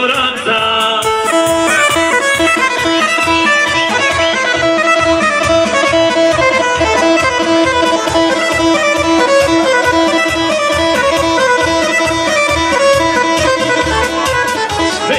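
Loud instrumental music with a fast, steady beat and long held melody notes.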